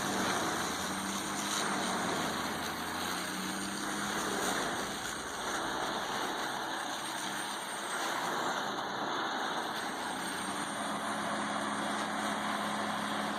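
Heavy industrial processing machine running: a steady, dense mechanical noise over a low constant hum.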